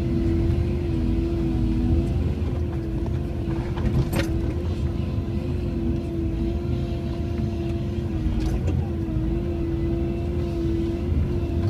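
Cat 312E excavator's diesel engine running steadily under load, with a steady whining tone over its low rumble. There are two sharp cracks, a strong one about four seconds in and a fainter one about eight and a half seconds in, as the tree shear works on the trunks.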